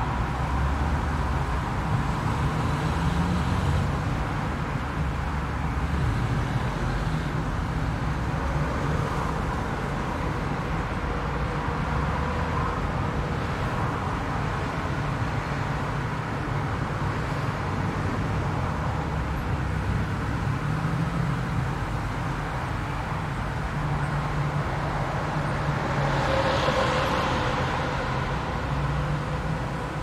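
A car driving along a road: steady low rumble of engine and tyre noise, with a brief louder rush a few seconds before the end.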